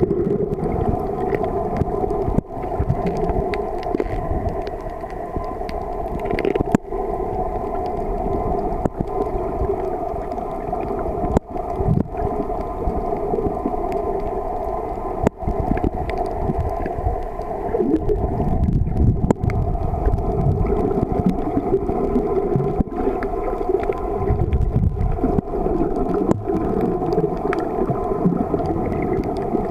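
Underwater sound picked up by a camera submerged on a reef: a steady drone in several fixed pitches over a low watery rumble, broken by a few brief dropouts and clicks.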